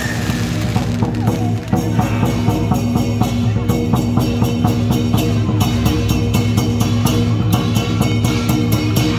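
Music with a fast, steady drum beat over a sustained bass line. The last of the fireworks noise dies away in the first moment.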